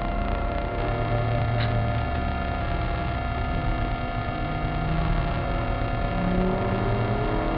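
Maserati Cambiocorsa's V8 engine heard from inside the cabin, running hard on track, with its revs climbing near the end.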